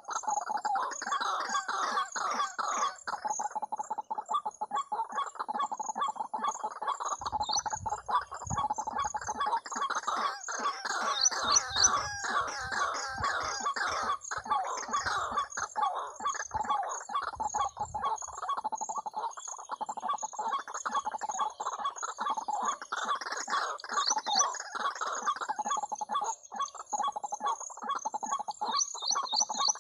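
Recorded waterhen calls played as a lure through a small portable speaker: a dense, unbroken run of quick repeated clucking calls.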